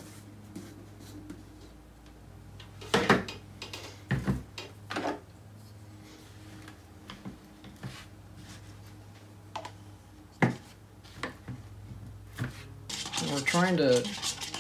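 A plastic jar of acrylic paint being handled on a tabletop: a few sharp clicks and knocks as the lid comes off and the jar is set down, then the quieter scrape of a stick scooping paint from the jar into a paper cup.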